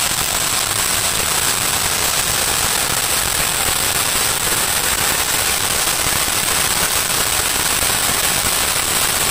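A ground 'cocktail' firecracker burning, giving a continuous hiss thick with rapid crackling as it sprays sparks.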